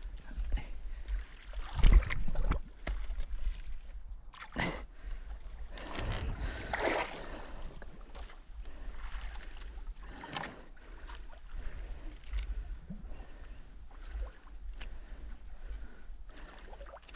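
Water sloshing against a small outrigger boat, with a steady low rumble of wind on the microphone and a few sharp knocks, the loudest about two seconds in.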